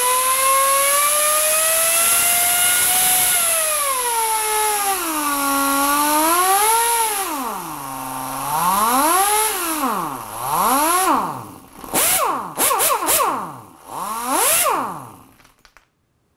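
Earthquake XT 1/2-inch composite air impact wrench running free with nothing on its anvil, its trigger feathered so the air motor's whine rises and falls with trigger pressure. It climbs slowly at first, then speeds up and slows down again and again, in shorter, quicker blips toward the end before stopping.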